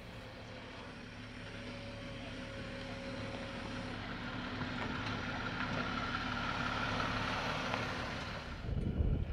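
Jeep engine running at low speed as the vehicle crawls along a dirt trail, growing louder as it approaches and passes close by, with a brief low rumble near the end.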